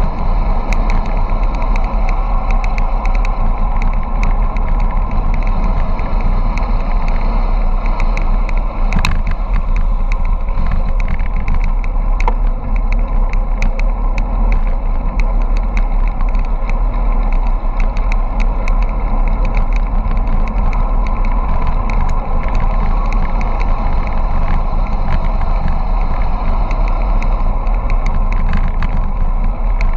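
Steady wind rushing over the microphone of a bike-mounted camera on a fast bicycle descent, together with rumble from tyres on asphalt. Scattered small clicks and rattles run through it.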